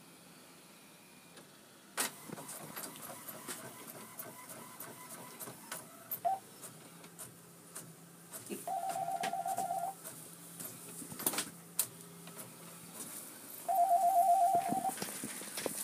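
Inkjet all-in-one printer at work: a run of clicks and knocks from its paper feed, with two passes of a rapidly pulsing motor buzz, about nine and fourteen seconds in, the loudest parts.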